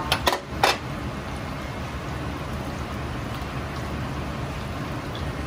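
Starch-coated chicken pieces deep-frying in a wok of oil: a steady bubbling sizzle over a low steady rumble. Four sharp clinks come in the first second, the first of them ringing.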